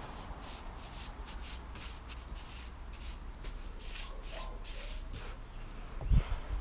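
Paintbrush bristles swishing across wooden deck boards as paint is brushed on, about two strokes a second, stopping about five seconds in. Near the end, a brief low thump.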